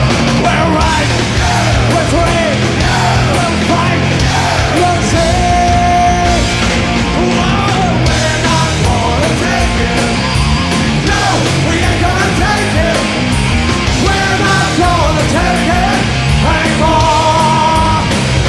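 Loud rock song with a singer over a full band, playing without a break.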